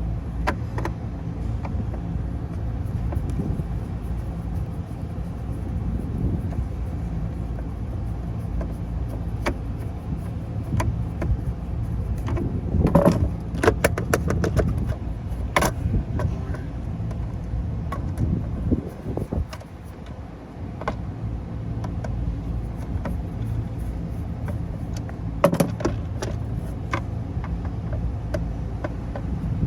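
Scattered sharp metal clicks and clinks as screws and the sheet-metal cover of a duct smoke detector are handled, with a cluster in the middle and another near the end, over a steady low mechanical hum.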